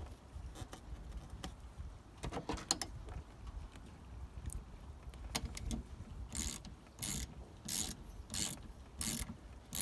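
Ratchet wrench with a half-inch socket clicking as it runs the wiper arm's retaining nut back down onto the pivot. A few scattered clicks come first, then from about two-thirds of the way in short bursts of clicking repeat regularly, about one every two-thirds of a second, with each back-swing of the handle.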